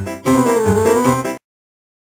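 Background music, a melody over plucked-string accompaniment, that cuts off suddenly about a second and a half in.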